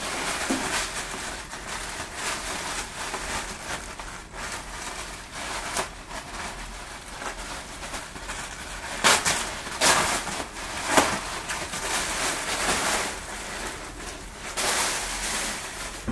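Clear plastic poly bag crinkling and rustling as hands handle it and work it open, with a few sharper, louder crackles a little past the middle.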